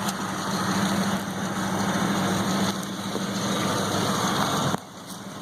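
Vehicle engine running through its old exhaust system, a steady rough drone; the exhaust is worn and due for replacement. The sound drops off abruptly near the end.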